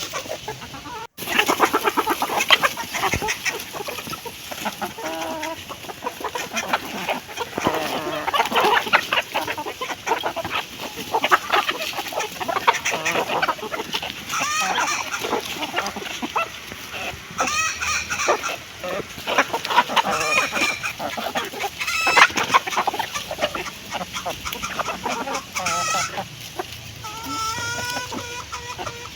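Hens clucking repeatedly while feeding, with frequent short clicks of pecking at food; a hen gives a series of longer drawn-out calls near the end.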